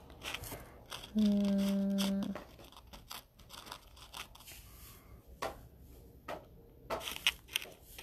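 Small clicks and rustles of beads and metal buttons being picked up and moved on a tabletop. About a second in comes a brief, even, hummed "mmm" from a person thinking it over.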